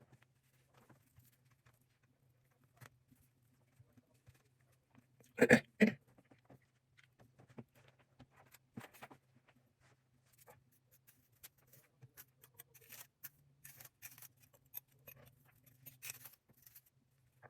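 Scattered soft clicks and rustles of handling, with two sharp knocks close together about five and a half seconds in, over a low steady hum.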